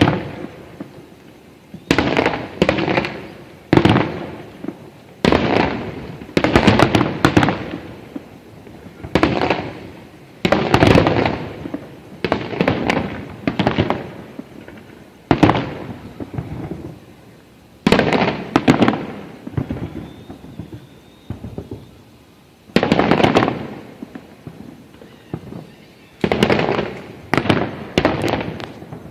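A fireworks display: aerial shells bursting in quick succession, a sharp bang every second or two, each one trailing off over a second or so. There is a short lull about two-thirds of the way through, then the bursts pick up again.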